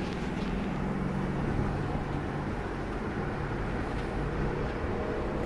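A car engine running with road noise, heard from inside the cabin of a moving car.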